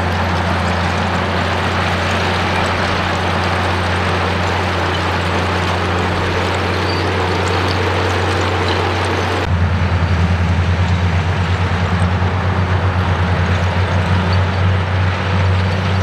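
Komatsu D85E bulldozer's diesel engine running steadily under load with a deep hum. About nine and a half seconds in the sound changes abruptly to a fast pulsing throb.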